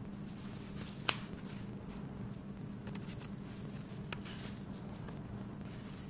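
Handling of a metal link watch band: one sharp click about a second in and a softer click around four seconds in, with faint rustling over a steady low hum.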